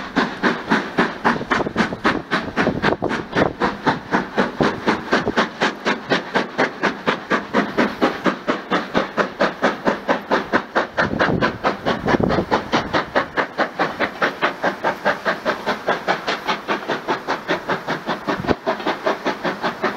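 Exhaust beats of an LMS two-cylinder steam locomotive working hard as it hauls a train away, a rapid, even chuffing at about four beats a second with steam hiss. A brief low rumble comes about twelve seconds in.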